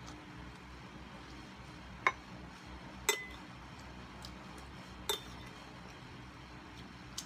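Metal spoon clinking against a glass bowl while scooping soup: four separate sharp clinks about a second or two apart, one with a short ring.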